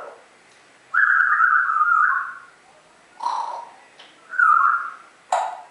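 A talking pet parrot whistling: one long, steady whistle about a second in, a short call, then a shorter whistle and a brief sharp squawk near the end.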